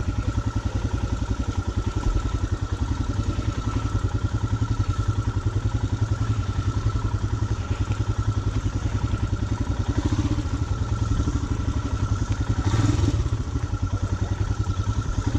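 Royal Enfield Himalayan motorcycle's single-cylinder engine running steadily with a rapid even thudding, swelling briefly louder about 13 seconds in.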